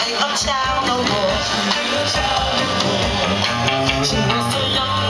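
Live soul band playing: drums, electric guitar and bass driving a groove, heard from the audience in a club.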